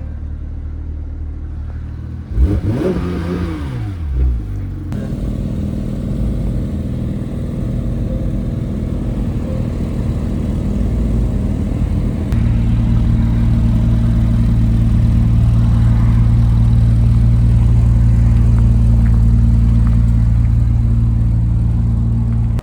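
Sports car engine under way on the road, with a brief rise and fall in engine pitch a few seconds in. After about twelve seconds it settles into a louder, steady low drone at cruising speed.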